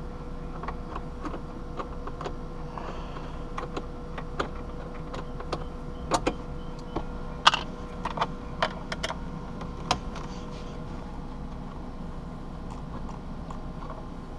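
Scattered light clicks and rattles of a hand screwdriver working out the screws that hold a factory car radio in the dash, with a run of sharper clicks between about six and ten seconds in.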